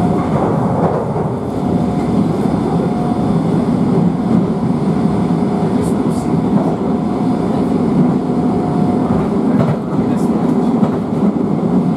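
Interior of a London Underground 1973 Stock train running at speed: a steady rumble of wheels on the track, with a thin steady tone that comes and goes.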